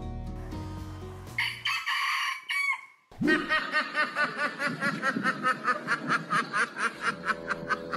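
A rooster crows once, about a second and a half in. From about three seconds a hen mallard gives a long, rapid run of quacks, about five a second. It is the duck's "laughing" call (хохот), most likely her summons to a drake.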